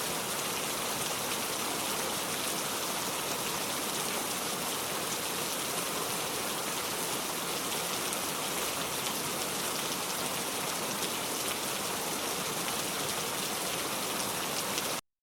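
Heavy rain falling steadily, a dense hiss of drops hitting a surface. It cuts off abruptly near the end.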